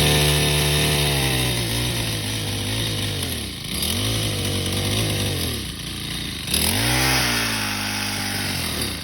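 Craftsman four-stroke small engine running with no oil in it, its speed sagging and picking back up twice.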